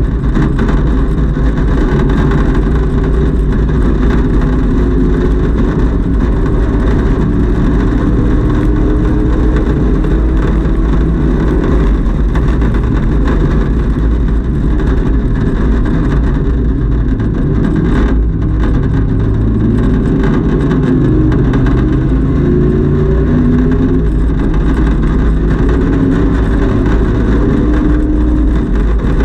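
Camaro race car's engine heard from inside its stripped, caged cabin at racing speed, its pitch climbing under acceleration and falling away as the driver lifts and brakes, over steady road and wind noise.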